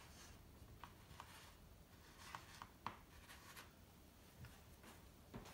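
Faint, scattered scrapes and ticks of a dessert spoon pressing indentations into a layer of salt in a plastic tub.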